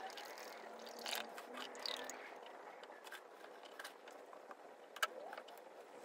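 Engine oil being poured from a bottle into the engine's filler, heard faintly as soft gurgles and handling noise, with a few small clicks, the sharpest about five seconds in.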